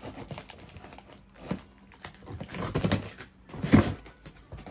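A small packet being handled: rustling and a few sharp knocks, the loudest near the end.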